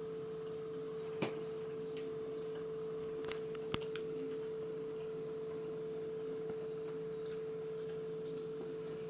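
A steady hum at one pitch, with a few faint clicks about a second in and again around three to four seconds in.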